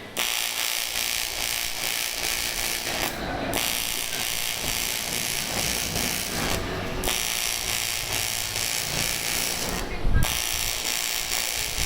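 AC TIG welding arc on aluminium, a steady high buzz that stops briefly three times as the arc is broken between runs, with a low thump at the third break.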